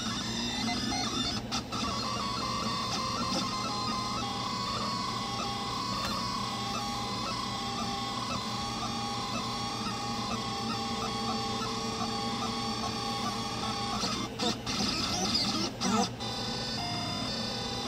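Delta 3D printer printing: its stepper motors whine in steady tones that shift in pitch every second or so as the print head changes moves, over a steady hum. A few quick pitch glides and dips come near the end.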